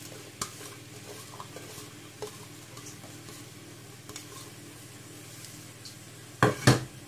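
Sliced onions frying in hot oil in a pot with a light sizzle, a wooden spoon stirring and scraping with small scattered clicks. Two loud sharp knocks come near the end.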